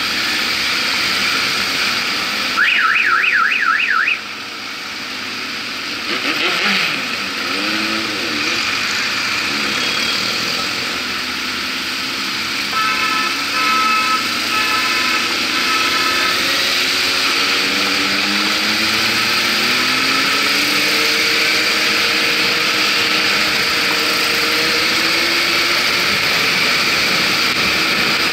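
Motorcycle engines running in a group ride, with wind noise on the microphone and engine pitch rising and falling in the second half. A few seconds in, a rapid up-and-down electronic warble sounds for about a second and a half, and around the middle horns toot in a run of short blasts.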